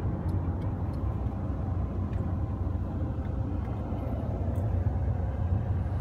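Pickup truck engine running, heard from inside the cab as a steady low rumble.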